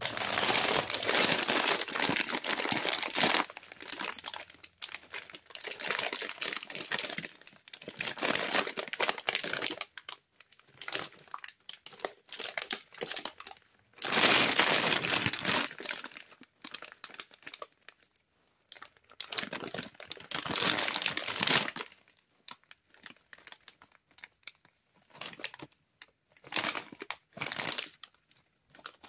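Cheetos Puffs and Cheetos Crunchy snack bags crinkling as hands press, rub and turn them over, in irregular bursts with short quiet gaps. The loudest stretches come at the start, about halfway through and about two-thirds through.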